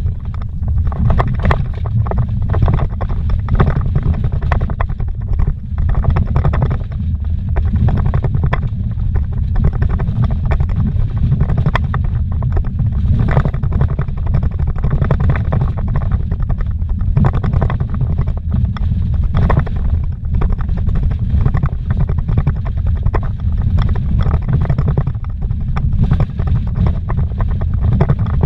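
Road noise inside a vehicle driven fast over a rough dirt road: a steady low rumble of engine and tyres, with frequent knocks and rattles as it jolts over the gravel.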